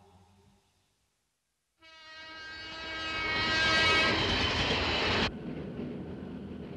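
An express train's horn sounds, swelling louder as the train approaches, over the noise of the train running. The horn cuts off suddenly and leaves a steady, lower rumble of the train.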